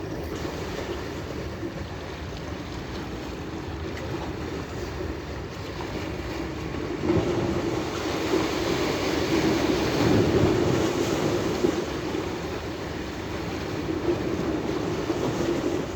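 Steady wash of wind and sea with a low drone underneath, growing louder about seven seconds in and easing off a few seconds later.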